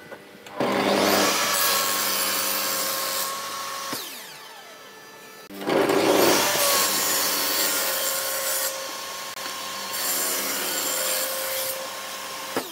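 Table saw blade cutting through thin hardwood boards, in two long cuts: the first starts about half a second in and lasts about three seconds, the second starts about five and a half seconds in and runs nearly to the end. Between the cuts the saw is quieter, with a steady hum and whine under the cutting noise.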